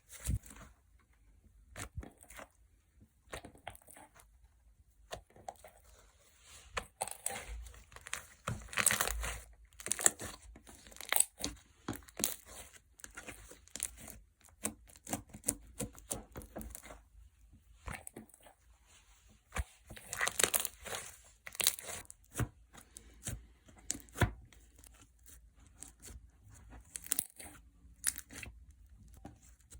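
Clear gel slime squished, stretched and poked by hand, making irregular wet clicks, pops and crackles. The sounds come thicker in two stretches, about a quarter of the way in and again past two-thirds.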